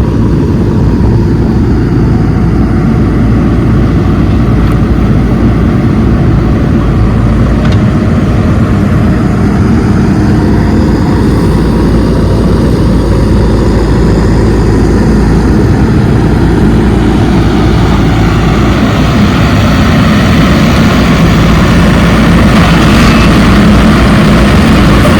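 Diesel engine of heavy earthmoving machinery running steadily under load, growing gradually louder and harsher toward the end.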